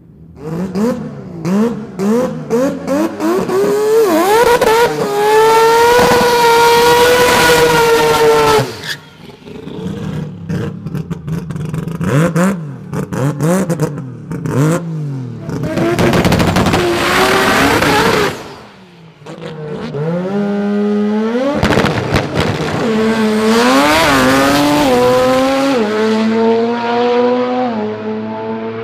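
Rotary-engined drag cars at full throttle, several runs cut together: the engine pitch climbs in long pulls and steps down at each gear change near the end, with sharp crackling exhaust pops between the pulls.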